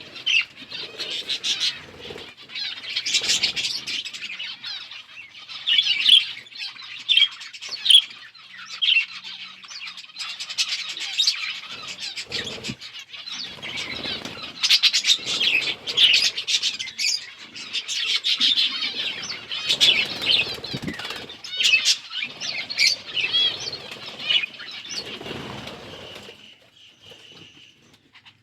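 A flock of budgerigars chirping and chattering over one another in quick, overlapping warbles, with occasional wing flutters. The chatter thins out near the end.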